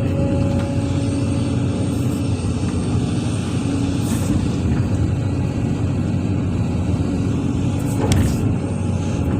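Excavator's diesel engine running steadily, with one sharp knock about eight seconds in.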